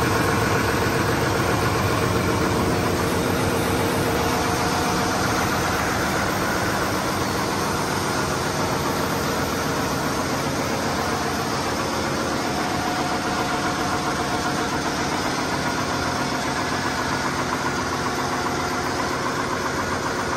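Yanmar marine auxiliary diesel generator engine running steadily at constant speed in a ship's engine room, a loud, even mechanical drone.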